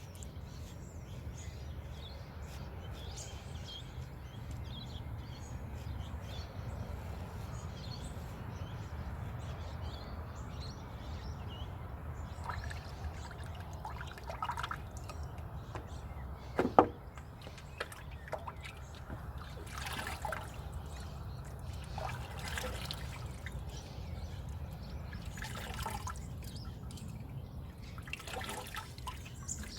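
Water splashing and dripping in several short bursts through the second half, with one sharp knock among them. Small birds chirp over a low steady background rumble in the first half.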